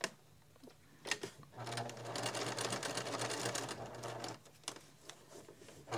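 Electric domestic sewing machine stitching a binding strip onto the edge of a quilt: a few sharp clicks, then the machine runs steadily for about three seconds from a second and a half in and stops, with another click after it.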